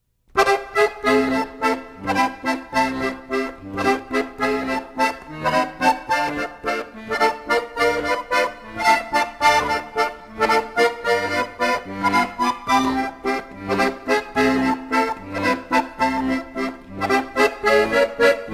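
Instrumental opening theme music with a steady beat, starting just after the beginning.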